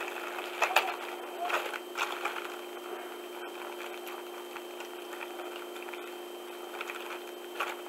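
Clear plastic packaging bag crinkling as it is handled and pulled open, with sharp crackles in the first two seconds and again near the end.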